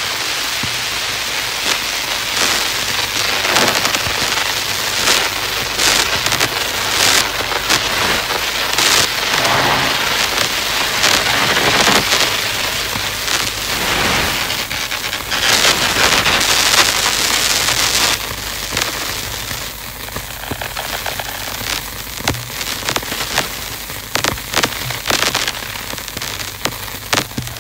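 Electroacoustic music of dense rapid clicks over hiss, with a faint low steady hum beneath. After about eighteen seconds it thins to scattered clicks and turns a little quieter.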